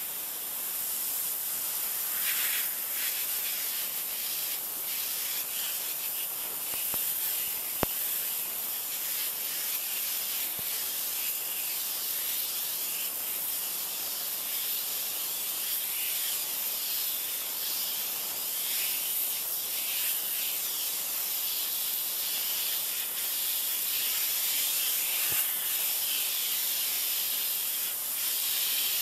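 High-pressure water jet from a 3000 psi pressure washer spraying onto a plastic lawn chair, heard only as a steady, thin hiss with no engine sound, picked up by a failing camcorder microphone. One sharp click a little under eight seconds in.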